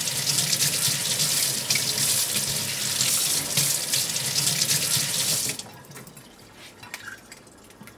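Kitchen tap running onto a raw whole chicken as it is rubbed clean by hand, the water splashing into a stainless steel sink. The water stops suddenly about five and a half seconds in, leaving only faint small sounds.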